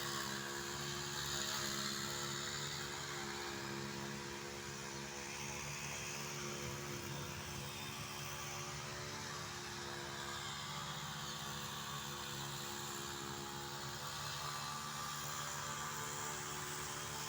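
A steady hum of one unchanging pitch, like a motor running, holding evenly throughout.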